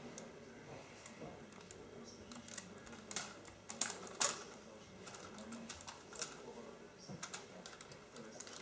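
Light plastic clicks and taps from a Lego Technic 8292 truck model being handled and set down on a wooden floor, with a run of sharper clicks about three to four seconds in.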